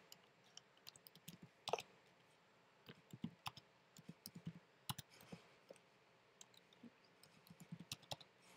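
Faint keystrokes on a computer keyboard as short words are typed, coming in small irregular groups of clicks.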